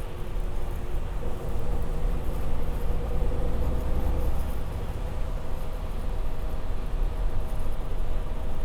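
Bus engine and running gear heard from inside the passenger cabin: a steady low rumble with a faint whine that fades after a few seconds and comes back a little higher.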